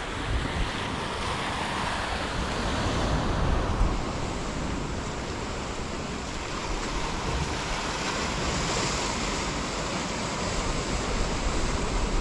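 Sea waves washing on the shore, a steady rushing noise, with wind gusting on the microphone.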